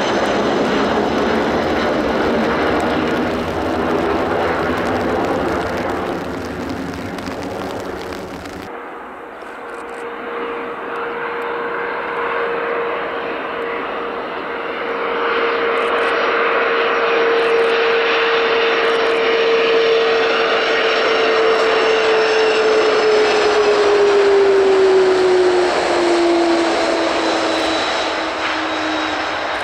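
Jet engines of an Airbus A320-family airliner climbing away overhead. Then a Boeing 767 twinjet on final approach and landing, its engines giving a strong steady whine that slides down in pitch as it passes, with touchdown near the end.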